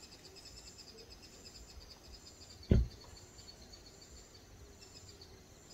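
An insect trilling steadily, a rapid high-pitched pulsing, with a single dull thump nearly three seconds in.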